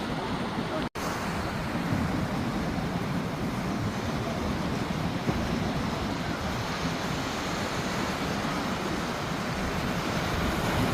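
Sea surf washing on the beach as a steady, even rush, with wind buffeting the microphone. The sound cuts out for an instant about a second in.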